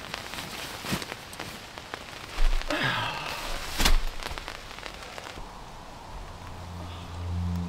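Rain pattering on the tent's canvas, with a few knocks and a rustle as gear is moved about under the shelter. Near the end the rain noise thins and low music swells in.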